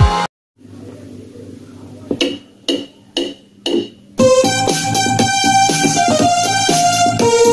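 Yamaha portable electronic keyboard: four short, soft notes about half a second apart, then from about four seconds in a loud melody of held notes moving up and down over a steady backing beat.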